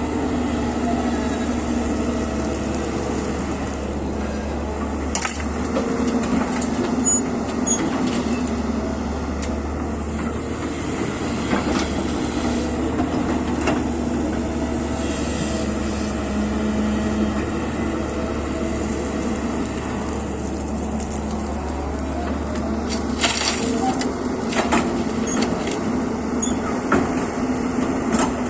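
Excavator's diesel engine running steadily, with a few short knocks and clatters scattered through it and a cluster of them late on.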